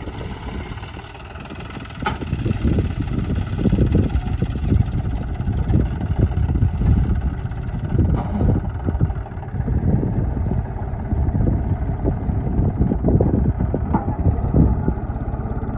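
John Deere 5105 tractor's three-cylinder diesel engine working under load as it pulls a heavily loaded trailer through soft ploughed soil. The engine gets louder about two seconds in and holds there.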